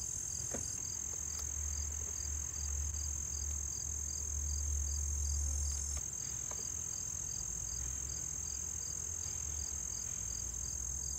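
Crickets and other insects chirping: a steady high-pitched trill with a chirp repeating about three times a second over it. Under it a low rumble swells in the middle and drops off suddenly about six seconds in.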